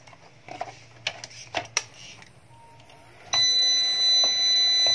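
A few sharp clicks of battery clamp leads being handled and clipped on, then a loud, high-pitched steady electronic beep from the UPS/inverter's buzzer, held about two seconds and cut off sharply, as the inverter powers up on battery.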